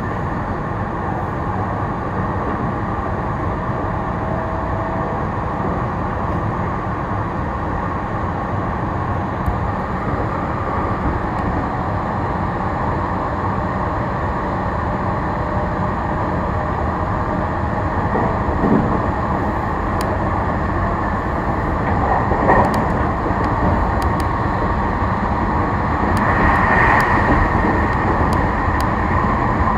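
Meitetsu electric train running between stations: a steady rumble of wheels and motors that grows a little louder near the end, with a few light clicks in the second half.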